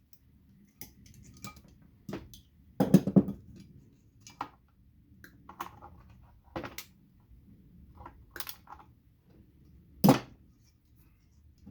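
Plastic clicking and snapping as bulbs are pulled from a string of Christmas lights and the sockets are broken apart. The clicks come irregularly, with a louder cluster of cracks about three seconds in and a sharp snap about ten seconds in.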